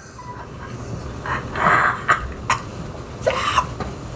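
A man laughing in a few short, breathy bursts.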